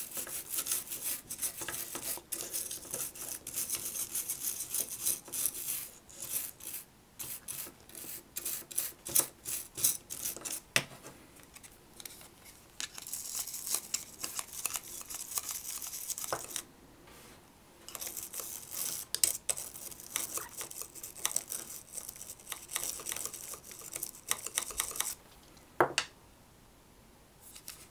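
Toothbrush bristles scrubbing the corroded battery contacts of a Sony MZ-N707 MiniDisc Walkman, a fast scratchy rubbing in runs of strokes with short pauses, as alkaline battery-leak corrosion is brushed off. The scrubbing stops for a couple of seconds near the end.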